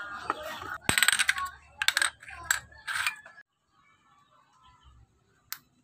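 Empty aluminium soda cans clinking and tapping against a wooden tabletop as they are handled, several light metallic clatters over the first three seconds, then near quiet with one sharp click near the end.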